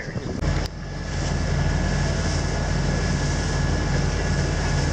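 Sailboat's engine running at a steady drone while motor sailing, with a hiss of wind and water over it. It comes in suddenly about half a second in.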